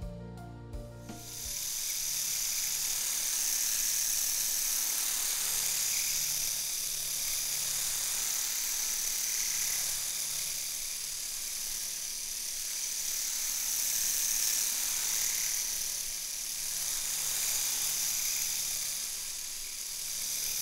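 Three-head rotary electric shaver running, picked up by a PU probe's pressure microphone held close to its cutting heads: a steady high, hiss-like buzz whose level rises and falls slowly. Through the microphone the sound changes little from one cutting head to the next. A short bit of music ends about a second in.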